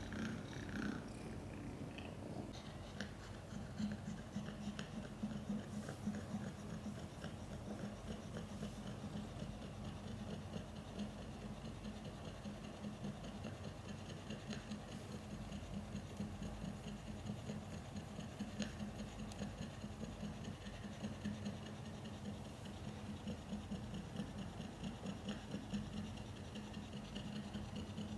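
Mother cat purring steadily, with quick rasping open-mouthed breaths, while in labour between kittens.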